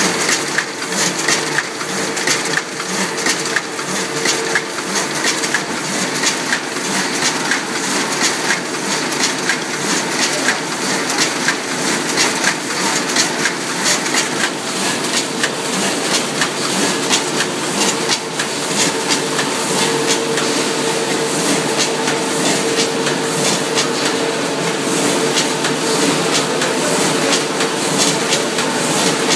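GNA AV650 vertical form-fill-seal bagger running in production at about 60 cycles a minute, bagging mixed salad: a steady mechanical clatter with many repeated clicks over a steady hum.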